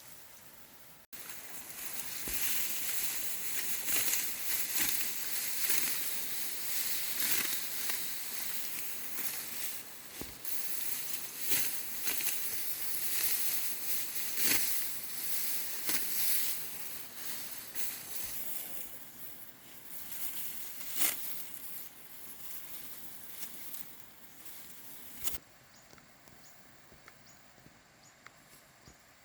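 Dry rice stalks rustling and crunching with crisp snaps, as rice is cut and handled by hand. The sound stops abruptly near the end, leaving a quieter background with a faint insect-like whine.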